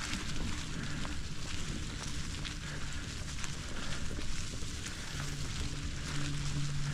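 Bicycle tyres rolling along a dirt farm trail, with a continuous crackle of the trail surface under the wheels. A low steady hum rises about five seconds in.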